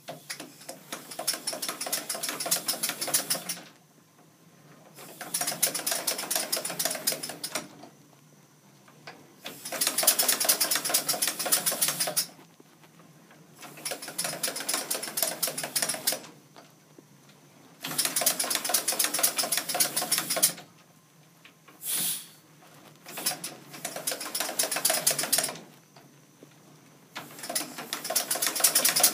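Tom Thumb locomotive running on compressed air, its cylinders exhausting in rapid, even chuffs with the clatter of the side rods. It is run in short bursts of a few seconds, stopping and starting about seven times, with one brief hiss of air between runs.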